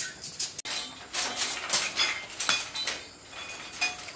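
Kitchenware clinking and tapping against a metal wok or pot, a quick irregular run of sharp strokes, some with a brief metallic ring.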